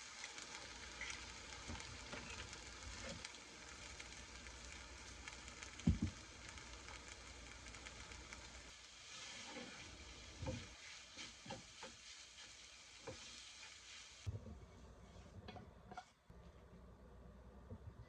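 Food sizzling in a frying pan, with scattered knocks of a utensil against the pan, the loudest about six seconds in. The sizzle drops away suddenly about fourteen seconds in, leaving a few faint knocks.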